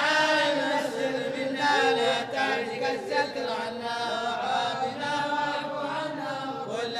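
Men chanting an Arabic devotional qasida, drawn-out sung lines held and bent in pitch, with no instruments.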